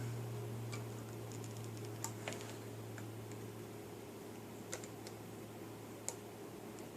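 Scattered faint clicks and taps of wires and small tools being handled during soldering work, over a steady low hum.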